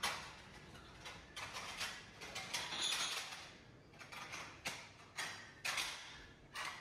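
About ten short mechanical scrapes and clicks at uneven intervals.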